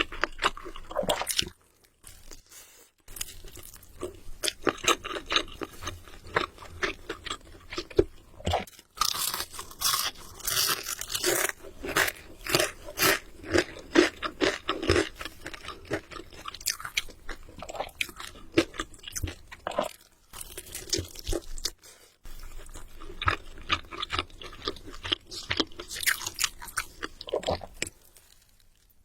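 Close-miked crunching and chewing of crispy fried chicken: dense runs of sharp, crackly bites and chews with a few short pauses between mouthfuls.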